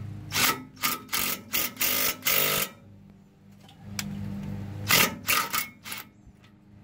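DeWalt 20V cordless impact driver hammering in short trigger bursts, driving a long bolt against a rusted-on brake rotor to press it off the hub. Six or so quick bursts, a pause, then a few more about five seconds in.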